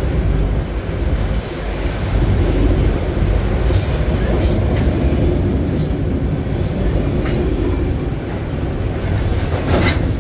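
Freight train of autorack cars rolling slowly past: a steady low rumble of steel wheels on rail, with several brief high-pitched wheel squeals and clicks scattered through it.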